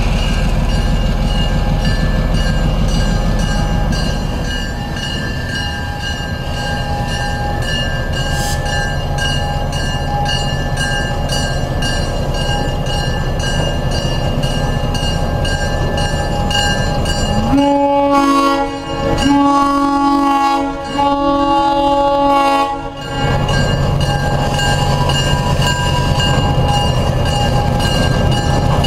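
ALCO diesel switcher locomotive running steadily as it rolls slowly along the track. About two-thirds of the way in it sounds its air horn in three blasts, together lasting about five seconds.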